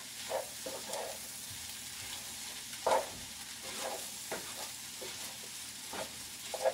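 Fried rice sizzling in a nonstick pan while a wooden spatula stirs and breaks it up. The spatula scrapes and knocks against the pan every second or so, loudest about three seconds in.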